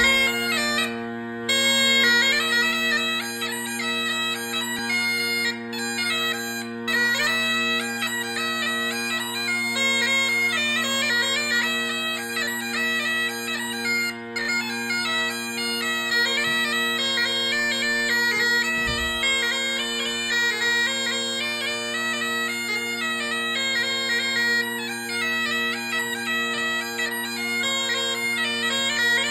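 Great Highland bagpipe playing a tune: a moving chanter melody over the steady, unbroken hum of its drones.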